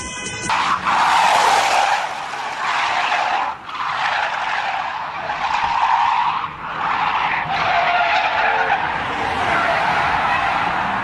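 Car tyres screeching as cars drift sideways, in long squeals broken by short gaps every few seconds.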